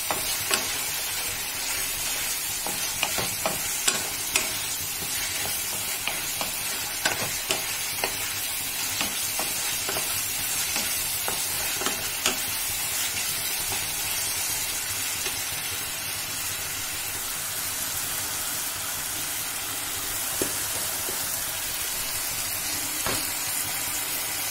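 Potato chunks frying in a thick spiced tomato-onion masala in a kadai, sizzling steadily while a spatula stirs, scraping and tapping against the pan. The taps come most often in the first half.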